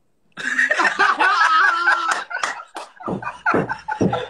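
Men laughing hard. About half a second in, one long high wavering laugh begins, then it breaks into several short bursts of laughter.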